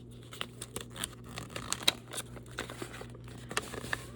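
Blind-bag packaging crinkling and crackling in the hands as it is opened, a string of irregular sharp crackles.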